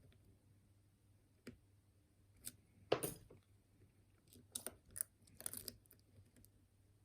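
Lock pick working the pins of a six-pin challenge lock cylinder: scattered faint metallic clicks and short scrapes. The loudest comes about three seconds in, followed by a cluster of clicks a second or so later.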